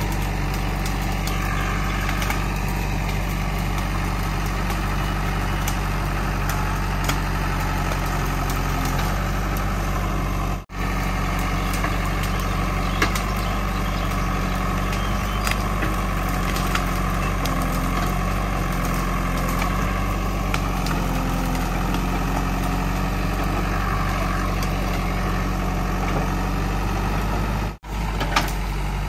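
JCB 3DX backhoe loader's Kirloskar diesel engine running steadily as the backhoe arm digs and drags out tree roots, the engine note shifting up and down under hydraulic load. Occasional light knocks sound over it.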